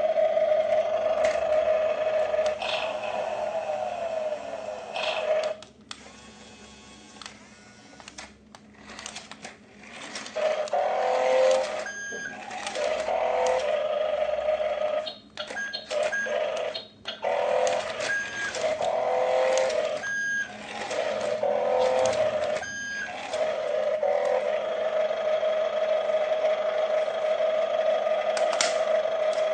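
Remote-control toy's small electric motor whining steadily. It drops out for a few seconds, then wavers and stops and starts for a while, with short high electronic beeps about six times, before settling back to a steady whine.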